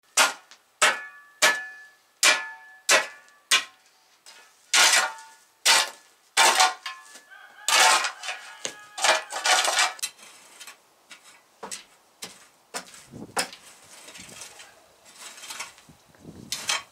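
Steel shovel blade chopping into and scraping a packed dirt floor. It starts with about six sharp strikes, one every half second or so, each with a short metallic ring, then turns to longer, louder scrapes and finally quieter scraping.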